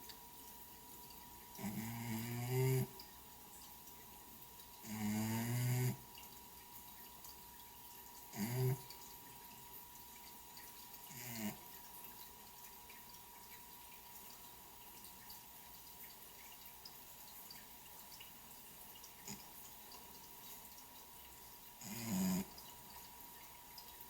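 Domestic cat snoring loudly in its sleep: five snores at irregular intervals, the first two longest at about a second each, then a pause of about ten seconds before the last one.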